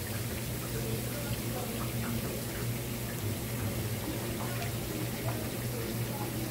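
Sliced bell peppers and onions sizzling in two frying pans over gas burners: a steady hiss with scattered faint crackles, over a constant low hum.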